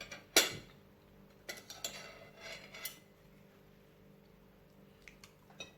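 Cutlery clinking against dishes: one sharp clink about half a second in, a run of lighter clinks and scrapes a second later, and a few faint ticks near the end.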